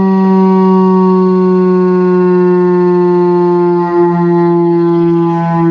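Federal Signal rotating civil-defence siren, which the recorder takes for an STH-10A, sounding a single steady tone whose pitch falls slowly.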